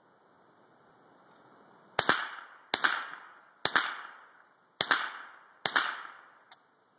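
.22 firearm fired five times in quick succession, roughly one shot a second, each crack trailing off in a short echo. A faint click follows the last shot.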